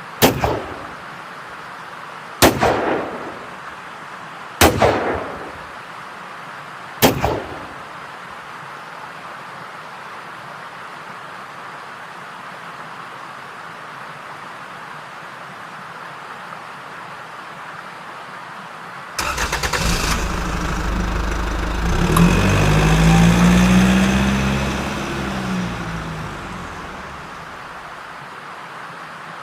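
Four sharp bangs about two seconds apart, each with a short ringing tail, over a steady hiss. After a long pause comes an engine-like revving sound that swells, rises and falls in pitch, and fades out over several seconds.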